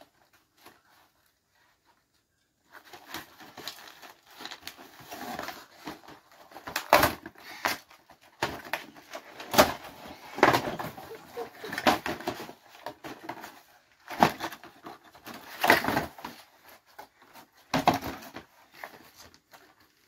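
Cardboard toy box being ripped open and handled: irregular scrapes, tears and sharp knocks of cardboard and the plastic tray inside, starting a few seconds in after a quiet start.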